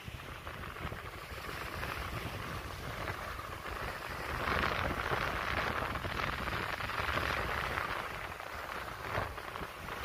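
Wind buffeting the microphone over the sound of sea waves washing in. The wash swells about four seconds in and eases again near the end.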